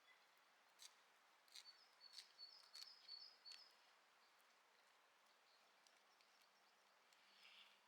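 Faint forest ambience: a small bird gives a short run of high chirps in the first half, mixed with a few faint sharp clicks, then only quiet background.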